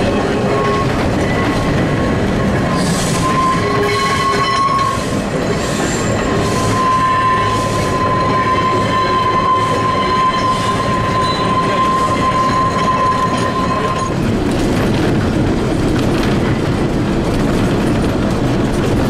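Manx Electric Railway tramcar and trailers running, wheels rumbling and clattering on the track, with a steady high wheel squeal on a sharp curve from about three seconds in until about two-thirds of the way through.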